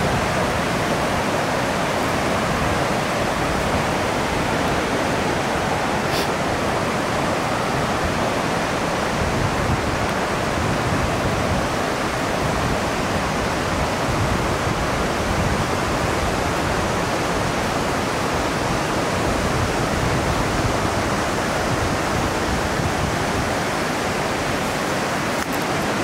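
Waterfall's falling water rushing steadily, an even unbroken wash of noise.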